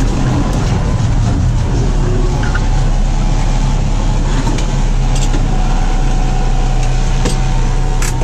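Tractor engine running steadily under load while driving a PTO-powered stalk shredder through sunflower stalks, with a steady high whine joining a couple of seconds in and a few light clicks.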